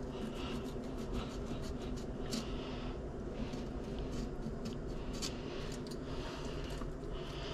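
Hands handling wet, thawed lake trout in a stainless steel sink: soft squishing and scraping with many small scattered clicks, over a steady low hum.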